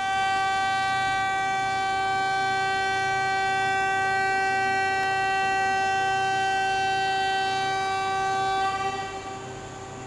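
Train horn sounding one long, steady blast of about nine seconds, then cutting off near the end, its echo dying away under the platform canopy.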